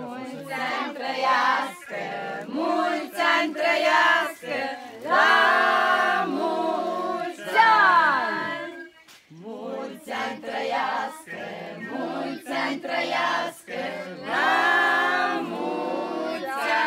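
A group of people singing together without accompaniment, in short phrases with brief breaks between them.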